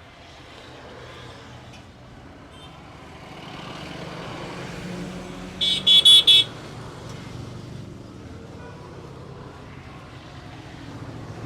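Road traffic running past, swelling toward the middle, with a vehicle horn giving four short, quick honks about six seconds in.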